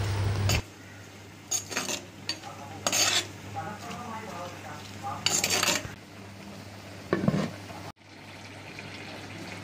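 A spoon stirring prawns, onion and green chillies in a terracotta clay pot, with scattered scrapes and knocks of the spoon against the pot over a steady low hum.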